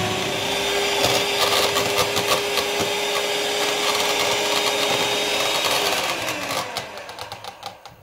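Electric hand mixer whisking egg whites to stiff peaks in a plastic measuring jug: a steady motor whine with a rattle of clicking beaters. About six seconds in, the motor is switched off and winds down to a stop.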